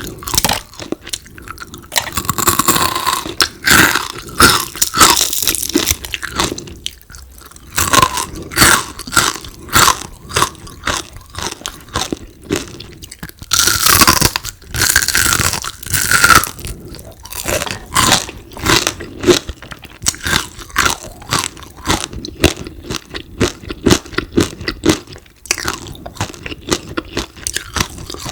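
Close-miked chewing of crispy deep-fried frog: rapid crunches and crackles, in two louder, denser stretches, one a couple of seconds in and one about halfway.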